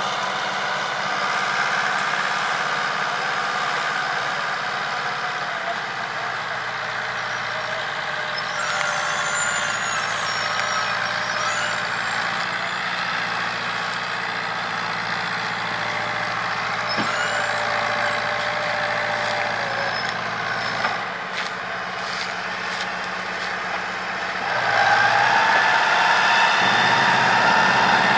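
Fiat 640 tractor's diesel engine running steadily under load as it pulls a heavily loaded sugarcane trailer over soft ground. Near the end the engine gets clearly louder and stays so.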